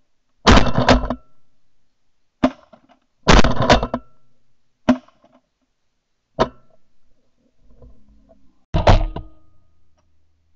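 Volley of shotgun blasts, about six, spread over nine seconds: two hunters firing into a flock of Canada geese.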